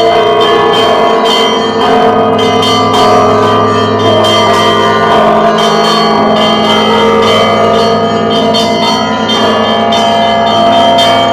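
Russian Orthodox monastery bells rung together: many quick strikes of smaller bells over the steady hum of a large bell, ringing on without a pause.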